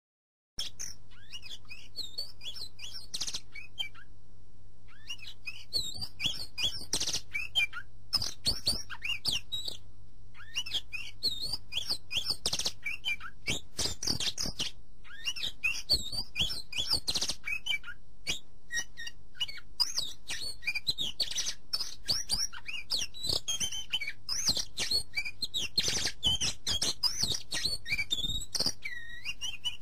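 Many small birds chirping and twittering in quick, overlapping calls, over a steady low hum. It starts suddenly about half a second in, after silence.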